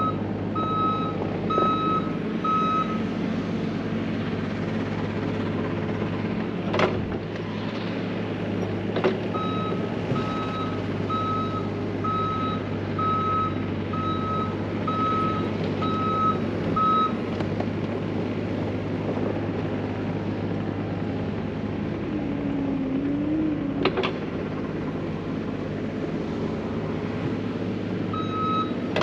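Heavy diesel earthmoving equipment running steadily, its backup alarm beeping about once a second in spells at the start, through the middle and again at the end. A few sharp metal clanks stand out, about 7, 9 and 24 seconds in.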